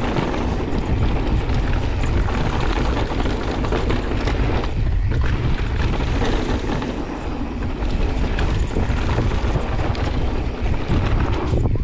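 Wind buffeting a bike-mounted action camera's microphone, mixed with mountain-bike tyres rolling over a loose dirt and gravel trail on a fast descent. A brief lull comes about five seconds in.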